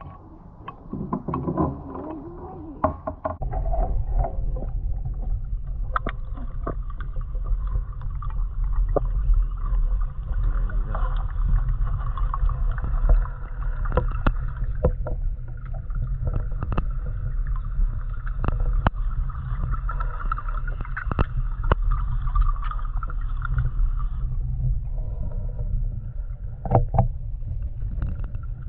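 Small boat moving on a lake: a steady low rumble that sets in a few seconds in, with scattered knocks and splashes.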